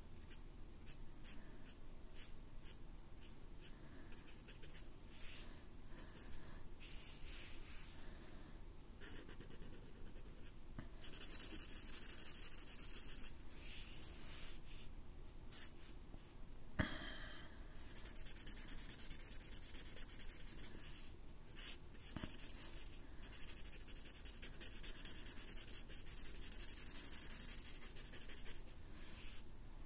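Sharpie chisel-tip permanent marker drawing on paper: quick separate strokes at first, then longer continuous scribbling as black areas are filled in, with one sharp tap about halfway through.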